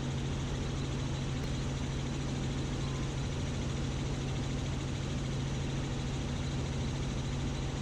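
Robinson R44 Clipper II helicopter in flight, heard from inside the cabin: a steady low hum with constant hiss, no change in pitch or level.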